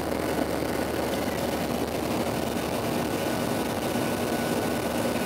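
Steady cabin roar of a Boeing 737-700 climbing out after takeoff: its CFM56 jet engines and the rushing airflow heard through the fuselage at a window seat, with a faint thin whine above the roar.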